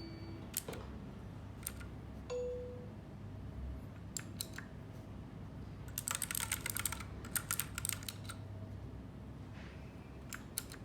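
Keys of a mechanical keyboard clicking: a few separate presses, then quick flurries of rapid key presses about six and eight seconds in. A brief beep sounds early on, over a low steady hum.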